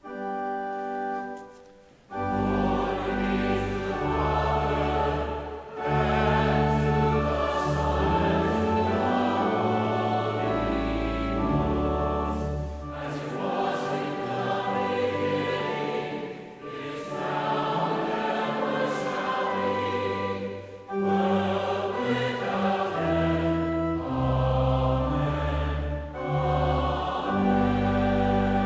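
Pipe organ holds a chord, then about two seconds in a choir comes in singing a hymn over the organ's deep bass notes. The singing breaks briefly between phrases.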